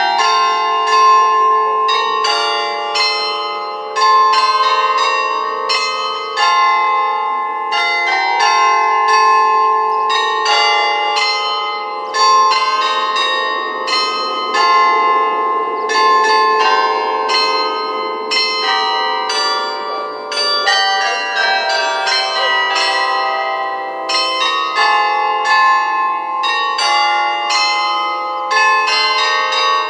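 A carillon of 47 bronze bells cast by Schilling of Apolda plays a tune, with bells often struck several at once in chords and each note ringing on under the next.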